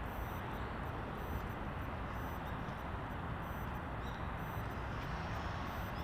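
Steady, even hum of distant road traffic.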